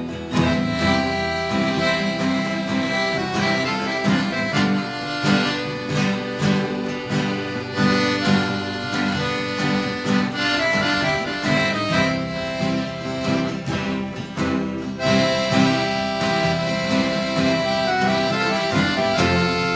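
Instrumental background music with melody and chords and no singing.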